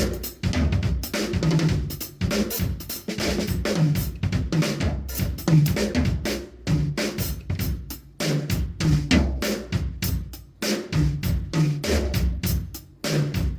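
Drum kit played in a steady groove: bass drum, snare and hi-hat/cymbals. The playing breaks off briefly about eight and about ten and a half seconds in.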